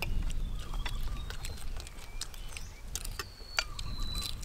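People eating with their hands: scattered chewing, lip-smack and food-handling clicks over a low rumble of wind on the microphone, with a faint thin tone gliding slowly down in the second half.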